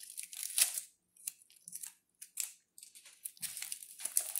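Gold foil wrapping on a hollow chocolate egg crinkling and tearing in short, irregular rustles as it is peeled back and the egg's two halves are pulled apart.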